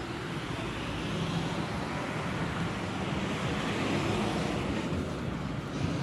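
Outdoor street ambience: a steady, even rumble and hiss with no distinct sounds standing out.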